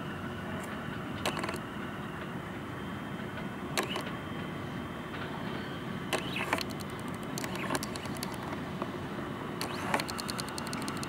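Bombardier R179 subway train approaching slowly on the track: a steady running noise with scattered sharp clicks, and bursts of rapid clicking about six and ten seconds in.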